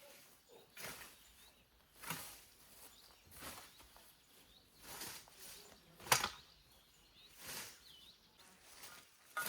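Hand scythe swishing through tall grass in steady strokes, about one every second and a half, one stroke about six seconds in louder than the rest.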